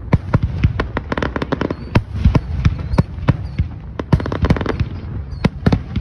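Aerial fireworks shells bursting in quick succession: a rapid run of sharp bangs, about four a second and of uneven loudness, over a continuous low rumble.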